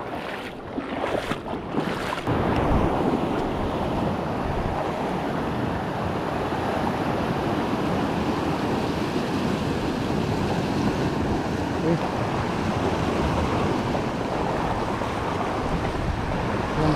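Steady rush of sea surf mixed with wind buffeting the microphone, with some uneven knocks and rustling in the first couple of seconds.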